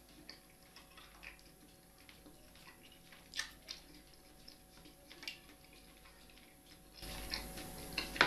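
Faint eating sounds: chewing and small wet mouth noises, with a few light clicks of a fork in a roasting dish. The background hiss grows louder about seven seconds in.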